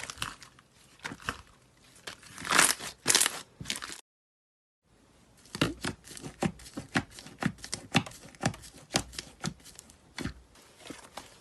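Slime worked by hand, giving sticky clicks, pops and crackles. The sound cuts out dead for about a second some four seconds in, then comes back as a run of clicks about two to three a second.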